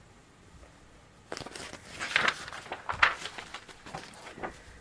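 Pages of a hardcover picture book being turned, a rustle and swish of paper starting about a second in and lasting a few seconds.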